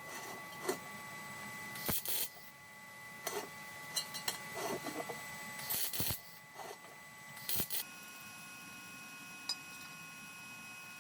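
Scattered light clicks, knocks and short scrapes of hard objects being handled, about a dozen, irregularly spaced, over a faint steady hum.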